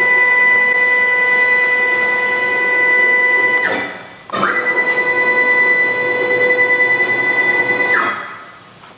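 Stepper motors of a Langmuir CrossFire Pro CNC plasma table jogging the torch gantry in two moves, each a steady whine that rises in pitch as it starts and falls as it stops. The first move stops a little under four seconds in; the second starts about half a second later and stops about eight seconds in.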